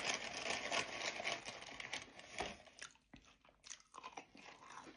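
Close-up chewing of cheesy bacon tater tots, dense crunching and mouth sounds for the first couple of seconds, then thinning to scattered small wet clicks.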